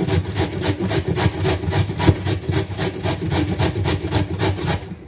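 Carrot being grated on the coarse side of a metal box grater: quick rhythmic rasping strokes, several a second.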